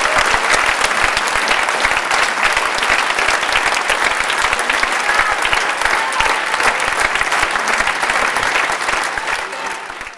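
Theatre audience applauding steadily, fading out near the end.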